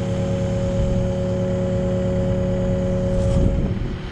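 Kubota compact excavator's diesel engine running steadily, with a steady whine over it that cuts off about three and a half seconds in.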